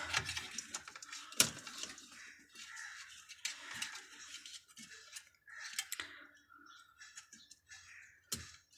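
Light handling of wire connectors on a new refrigerator thermostat: scattered small clicks and rustling, with one sharp click about a second and a half in and another near the end.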